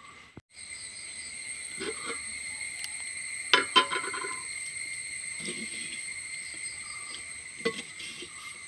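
Steady high-pitched trilling of crickets, with a few sharp knocks and clatters of kitchen utensils over it. The loudest is a quick cluster of clatters about three and a half seconds in. The background briefly drops out just after the start.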